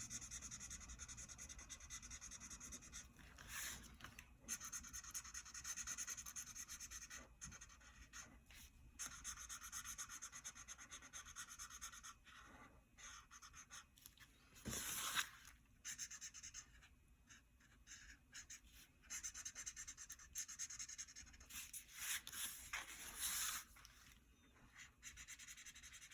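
Felt-tip marker colouring on paper: fine, rapid back-and-forth scratchy strokes that come and go in spells, with a brief louder scrape about fifteen seconds in.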